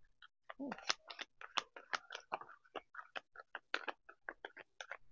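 A deck of tarot cards being shuffled by hand: a fast, irregular run of card clicks and snaps.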